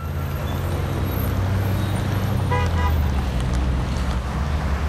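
Street traffic: a steady low rumble of vehicle engines going by, with one short horn toot a little past halfway.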